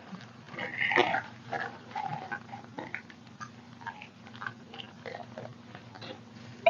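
Soft, irregular rustling and crackling of a dampened paper napkin being torn away along the edge of a tray, with a slightly louder tear about a second in.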